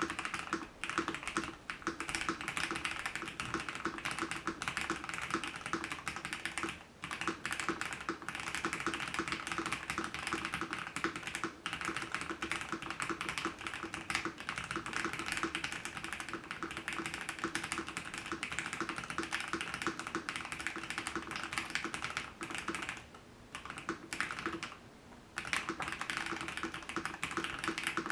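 Fast continuous typing on a gasket-mounted mechanical keyboard with hand-lubed linear red switches, PBT Cherry-profile keycaps and a polycarbonate plate, tape-modded and silicone-dampened, giving a dense run of soft clacks. The typing pauses briefly a few times, near 7 seconds and twice between about 23 and 25 seconds.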